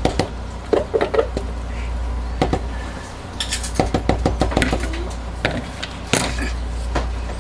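Plastic measuring jug and spatula being handled: a scattering of light clicks, taps and knocks, with a steady low hum underneath.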